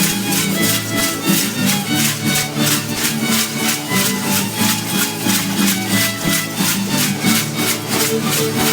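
Traditional dance music: rattles shaken in a steady beat of about four a second over sustained melodic tones, with a fiddle-like quality.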